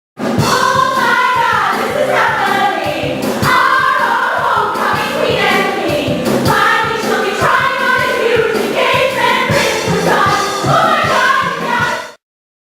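Musical-theatre song with a group of voices singing over an accompaniment with a regular beat, cutting off abruptly near the end.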